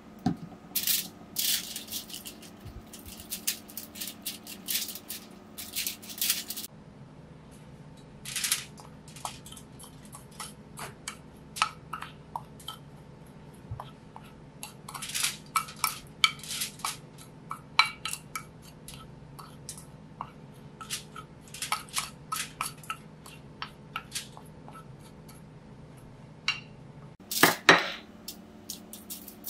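Chopsticks tapping and scraping on a ceramic plate as a dry spice rub is mixed, in irregular clusters of light clicks, with a louder clatter near the end. A steady low hum runs underneath.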